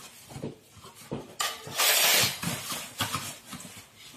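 Plastic packaging and cardboard rustling and crinkling as parts are pulled out of a shipping box, with small knocks of handling. The loudest rustle comes about a second and a half in and lasts under a second.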